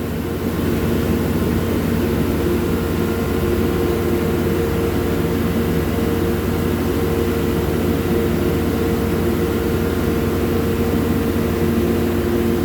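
Skid steer loader engine running steadily, a little louder from about half a second in.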